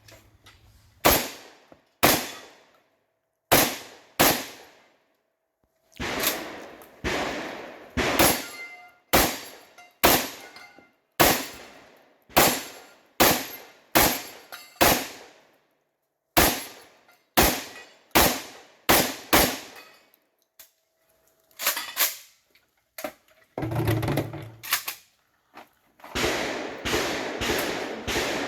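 Shotgun fired in a fast string of single shots, roughly one every half second to a second, broken by a few short pauses; each shot rings briefly. Near the end the shots give way to a stretch of rough, dense noise.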